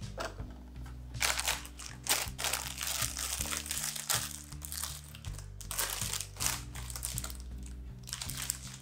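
Clear plastic bag of paper cone coffee filters crinkling and rustling in irregular bursts as it is handled open and a filter is pulled out, over soft background music.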